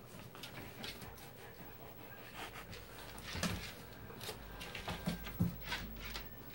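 A dog and a raccoon play-wrestling: scuffling and scattered clicks of claws on a hardwood floor, with the dog panting. A few short, low huffs come about three and a half and five seconds in.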